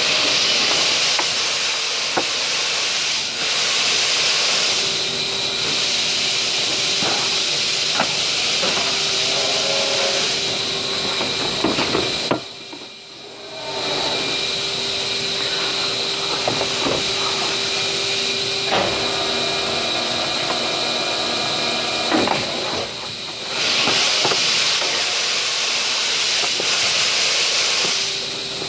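Steady loud hiss with a thin high whine, which drops out briefly about twelve seconds in. Light clicks and knocks of plastic pots being handled.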